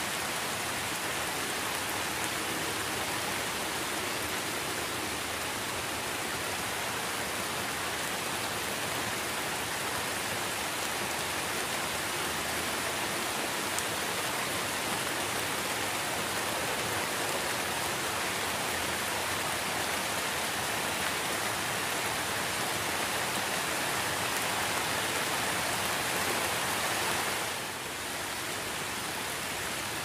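Steady rain falling: an even hiss of many drops on a surface. The level drops a little near the end.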